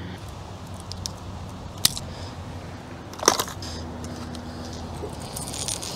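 Lures and the lid of a plastic tackle box being handled, giving two sharp clicks and a few lighter ticks and rattles over a faint steady background.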